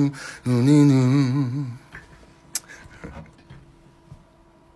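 A man's voice sings a wordless held note with a wide vibrato that stops about two seconds in. After that comes a quiet room with a faint steady hum and a single sharp click.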